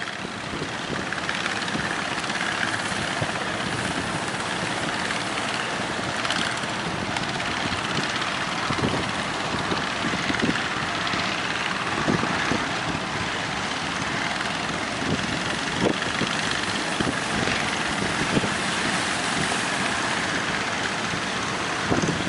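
Small motorboat under way at sea in strong wind, its engine running steadily under a loud rush of wind on the microphone, with scattered low thumps.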